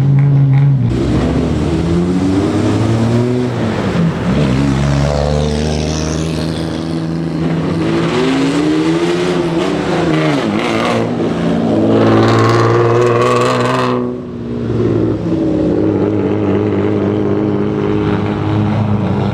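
Old Japanese custom cars' engines being revved over and over, the pitch swelling up and falling back in several throttle blips. About two-thirds of the way through the sound dips briefly, then a steadier, wavering engine note carries on.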